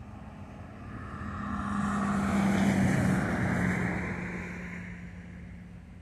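An engine passing by: a hum and rushing noise swell to a peak about halfway through, then fade, the hum dropping slightly in pitch as it goes past.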